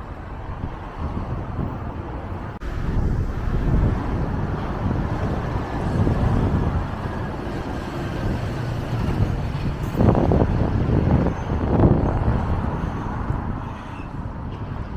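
Outdoor street sound of wind buffeting the microphone over road traffic, with louder surges about two-thirds of the way through.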